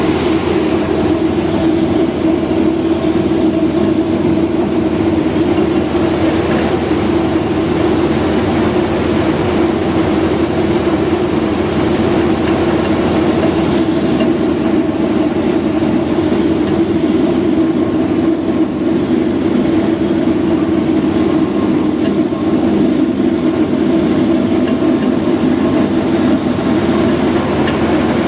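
Satake rice huller running steadily: a constant machine hum with a strong low tone and no clear knocking.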